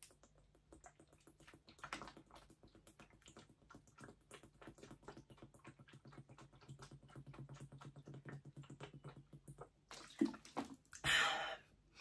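A person drinking water from a plastic bottle in a steady run of quiet, rapid gulps. About ten seconds in the gulping stops and there is a short, louder burst of noise as the bottle comes down.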